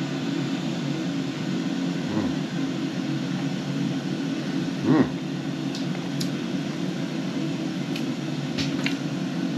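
Cosori Turboblaze air fryer running with chips cooking: its fan gives a steady hum. A brief mouth sound comes about halfway through, and a few faint clicks near the end.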